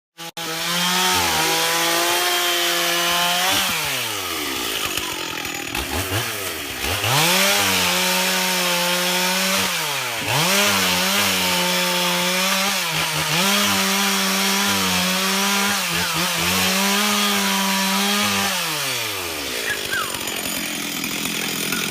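Stihl 044 single-cylinder two-stroke chainsaw, with a freshly sharpened 26-inch chain, running at full throttle and cutting wood. The engine note falls and climbs back about five times as the throttle is eased and reapplied. Near the end it winds down to idle.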